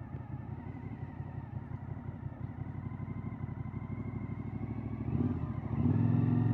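Motorcycle engine running at low revs while riding, a steady rumbling note. It grows louder a little after five seconds as the throttle opens.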